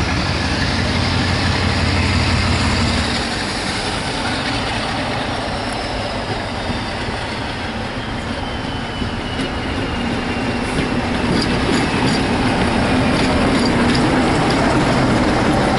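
Diesel-locomotive-hauled passenger train passing close by: the locomotive's engine, then the coaches rolling past with clicks from the wheels over the rail joints, getting louder toward the end.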